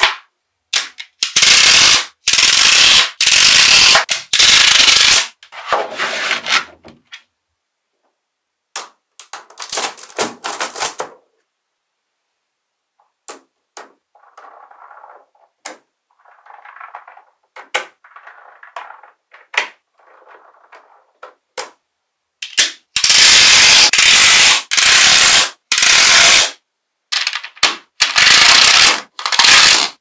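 Small magnetic metal balls clicking and clattering against each other as rows of them are snapped into place. The sound comes in loud bursts of rapid clicking, each about a second long, with a stretch of softer clicking in the middle and silent gaps between.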